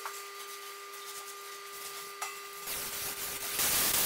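Compressed-air blow gun on a coiled air hose hissing. The hiss builds about three seconds in and turns loud and steady near the end, after a faint steady hum.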